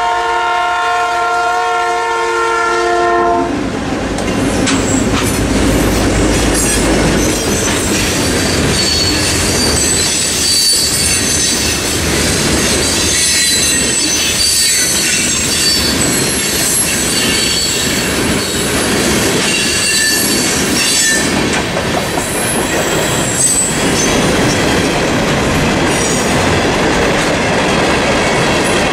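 A diesel freight locomotive's horn holds a steady multi-note chord that cuts off about three and a half seconds in. The EMD diesel locomotives then pass with a deep rumble, followed by the freight cars rolling by with clickety-clack of wheels over the rail joints and high-pitched wheel squeal.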